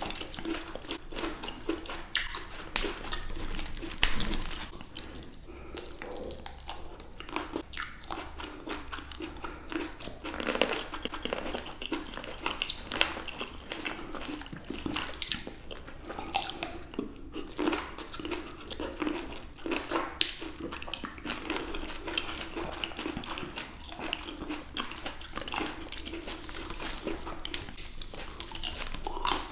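Close-miked biting and chewing of fresh grapes by two eaters: a continuous run of sharp, irregular bites and wet chewing crackles, with two louder bites about 3 and 4 seconds in.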